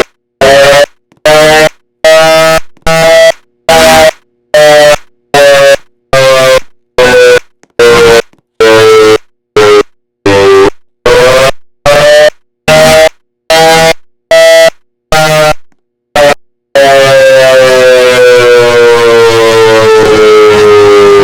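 A loud siren sounding a pulsed tone, a little more than one burst a second, its pitch slowly rising and falling across the bursts. Near the end it changes to a steady, unbroken wail that slowly falls in pitch.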